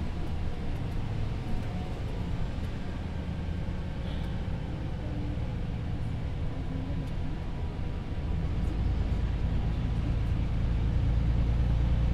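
Volvo 8900LE city bus heard from inside while under way: a steady engine and road rumble that grows louder in its deepest notes about eight seconds in, as the engine works harder.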